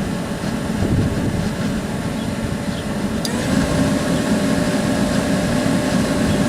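Newly installed heater blower motor of a 1992 Chevy Astro van switching on: a click about three seconds in, then the fan motor spins up with a short rising whine and runs on at a steady pitch under a low steady rumble, sounding smooth.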